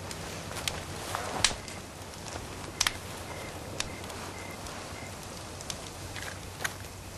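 Campfire crackling: irregular sharp pops and snaps over a low steady hiss.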